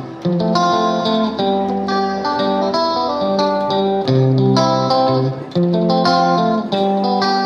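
Instrumental background music led by guitar, plucked notes over chords that change every second or so.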